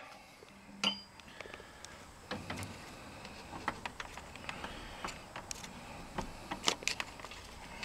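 Faint clicks and scrapes of a flat-blade screwdriver and bare copper wire against the metal ground bus bar in a breaker panel, as a ground wire is set under a loosened terminal screw. A small metallic tick with a short ring comes about a second in.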